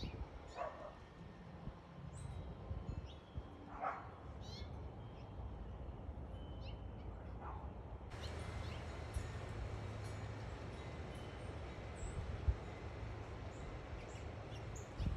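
A dog barking three times, a few seconds apart, with short high bird chirps around it.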